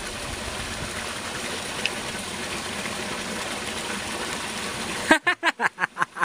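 Running water, a steady rush. It stops abruptly about five seconds in, and a person's voice follows in a quick run of short bursts.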